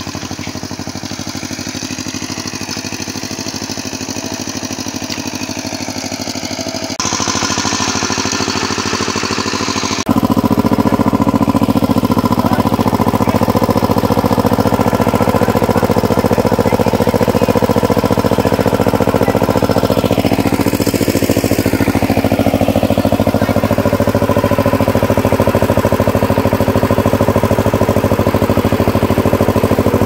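Single-cylinder diesel engine of a walk-behind power tiller running steadily under load while ploughing a flooded paddy field. It sounds more distant at first, then louder and closer from about ten seconds in.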